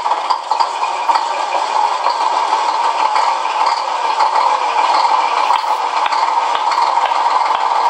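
Recorded semi-truck engine idling, played from a Beier SFR-1 sound controller through a small speaker, so it lacks deep bass. Turn-signal ticking sounds come through about once a second in the second half.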